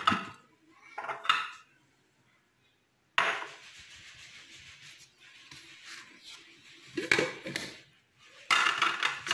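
Glass tumblers knocking and clinking as they are handled and set down on a granite countertop. There are a few separate knocks, the loudest cluster near the end.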